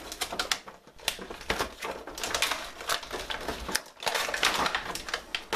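Clear plastic clamshell blister packaging crackling and crinkling as it is pried apart by hand, with many sharp clicks and a short lull a little before four seconds in.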